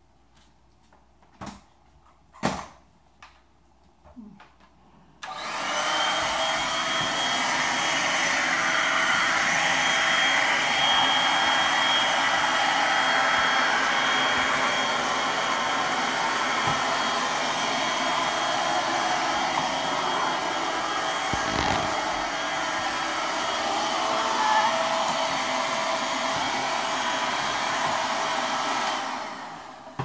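Small corded handheld vacuum cleaner switched on about five seconds in. It runs steadily with a high-pitched whine, then winds down near the end.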